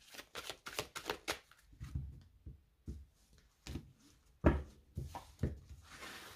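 Tarot cards being handled: a quick run of sharp card flicks in the first second or so, then a few soft knocks as cards meet the table (the loudest about four and a half seconds in), and a short sliding rustle near the end.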